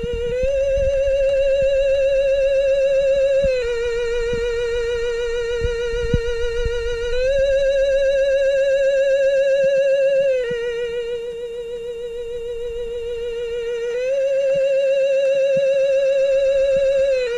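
An eerie, sustained wavering tone with heavy vibrato, stepping back and forth between a lower and a slightly higher note about every three and a half seconds. Faint low knocks and rumble sit under it in the first half.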